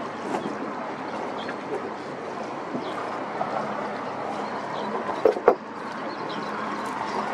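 Small wooden-oared rowing boat being rowed close by: steady riverside background noise with two sharp knocks a little over five seconds in, the oars knocking in their rowlocks.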